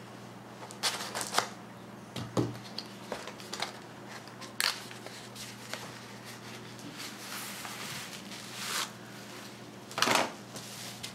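Bubble-wrap packaging round a replacement laptop keyboard being handled, with irregular crinkling and crackling rustles, the loudest near the end.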